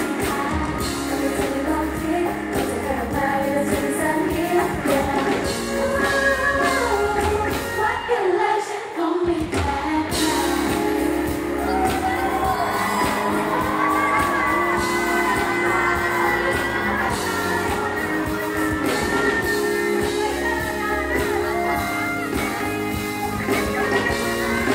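Live pop music played loud through a hall PA: a girl group sings over a bass-heavy backing track, with fans shouting along. The bass drops out for about a second some eight seconds in, then the track comes back in.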